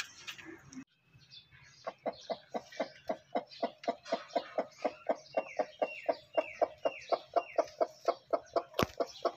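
Broody hen clucking: a long, even run of short clucks, about four a second, starting about two seconds in. This is the broody hen's call. A single sharp knock comes near the end.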